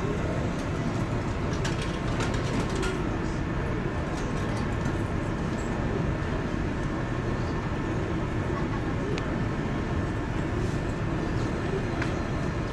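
Steady low drone of the car ferry's engines and machinery heard inside the passenger deck, with a few faint clicks about two seconds in and again near the end.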